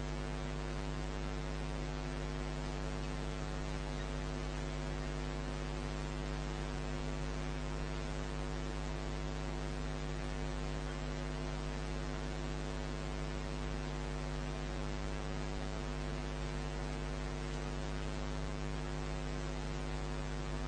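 Steady electrical mains hum with a stack of even overtones over a faint background hiss, unchanging throughout.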